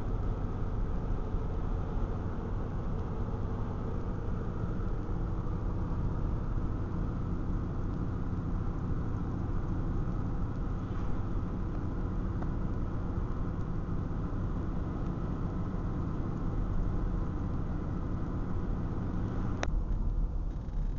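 Steady road and engine noise of a moving car, heard from inside the cabin. A single short click near the end.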